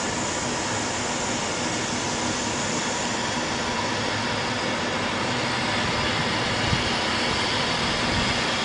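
Steady rushing noise with a faint, even hum running through it: the engines and machinery of a trailing suction hopper dredger.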